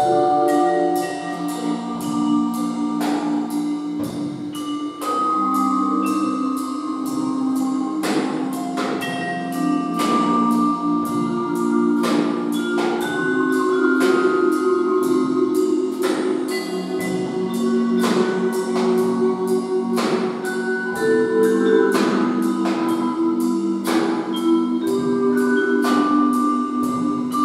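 Live percussion ensemble music: mallet keyboard instruments play held, ringing notes over a drum kit keeping a steady beat, with drum and cymbal hits about once a second.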